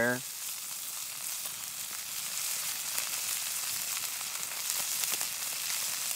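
Mallard duck breasts searing in olive oil in a cast-iron skillet over a wood fire: a steady sizzle with scattered small pops.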